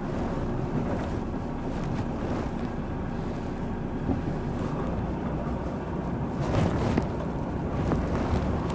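Truck tractor unit's diesel engine running steadily as the truck rolls out slowly at walking pace.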